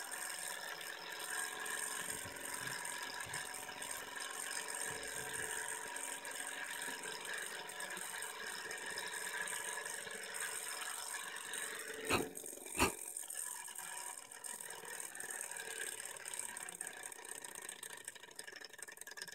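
HB31 model hot-air Stirling engine running on its spirit burner: a steady light rattle of its flywheel and linkages. About twelve seconds in come two sharp metal clicks as the snuffer cap goes onto the burner, and the running then grows fainter as the engine slows.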